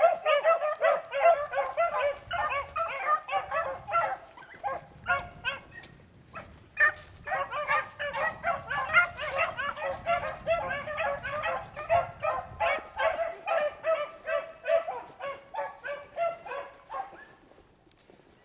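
A pack of beagles baying in chorus while running a rabbit on scent, many dogs giving tongue over one another. The chorus thins out briefly about a third of the way in, picks up again, then dies away near the end.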